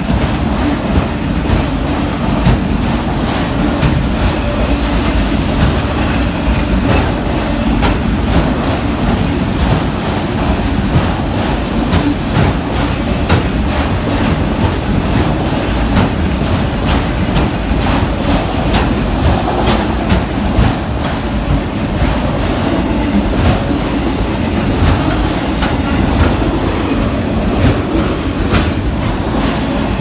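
Union Pacific autorack freight cars rolling past at speed: a steady loud rumble of steel wheels on rail, with continual clickety-clack of wheels over the rail joints and crossing.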